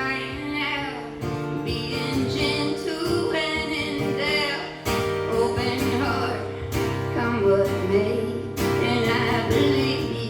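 A live acoustic song: acoustic guitar playing with a singing voice over it.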